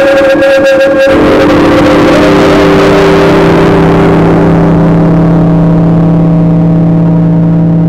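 Music: a held organ-like chord, with a noisy cymbal-like wash that swells about a second in and fades away over the next few seconds.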